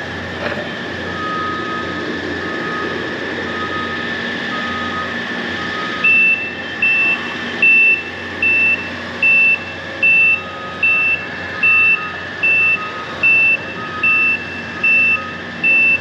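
Backup alarms of construction machinery: a fainter, lower-pitched one beeps steadily, and about six seconds in a louder, higher-pitched one joins, beeping a little faster than once a second. Under both runs a steady hum of working machinery.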